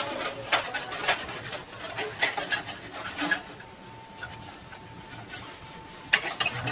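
Rubbing and scraping with scattered clicks as a RAM stick is cleaned by hand. It quietens for a few seconds in the middle, where a faint steady tone sounds, and the scraping starts again near the end.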